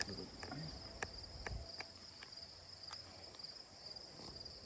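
Insects trilling steadily in two high, pulsing tones, with a few faint clicks.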